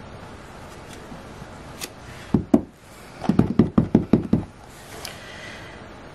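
Cling stamp on a clear acrylic block tapped against an ink pad to ink it up: a few separate knocks, then a quick run of about seven soft knocks around three to four seconds in.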